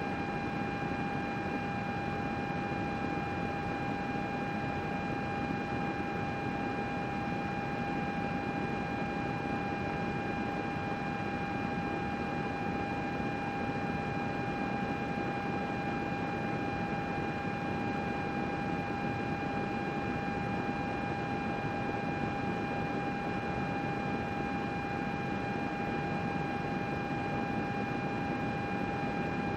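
Desktop computer running steadily: the even whoosh of its cooling fans, with a steady whine on top.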